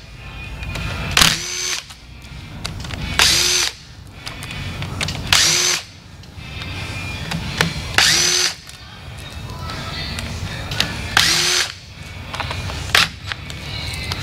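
Cordless power driver run in six short bursts, each spinning up in pitch, backing out screws in the cam chest of a Harley Twin Cam engine during teardown.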